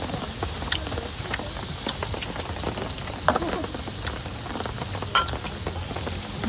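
Steady rain hiss with many scattered drops tapping, one louder tap about three seconds in and another about five seconds in.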